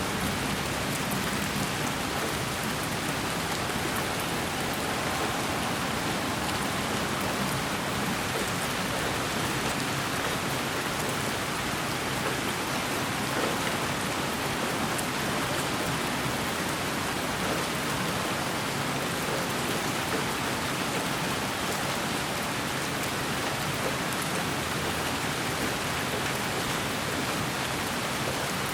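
Steady white noise: an even, rain-like hiss that holds the same level throughout.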